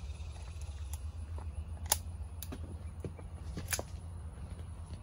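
Light metallic clicks of a Smith & Wesson Model 327 M&P R8 revolver being loaded and handled, the sharpest about two seconds in and another near the end, over a low steady rumble.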